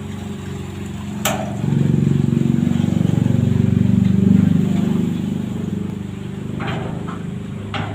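An engine running steadily, growing louder for a few seconds in the middle and then easing off, with three sharp metal knocks from work on the sidecar's wheel mounting.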